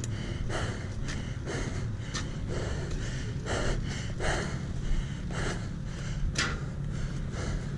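A rider breathing hard, a heavy breath about every second, out of breath from pushing a dirt bike back uphill by hand.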